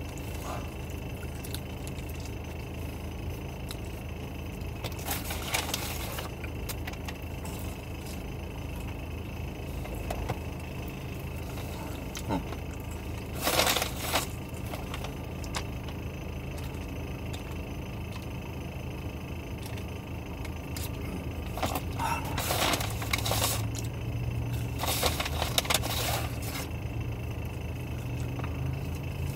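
Paper fast-food bag and wrappers crinkling in about four short bursts as fries are taken out. Underneath is a steady low hum inside the car.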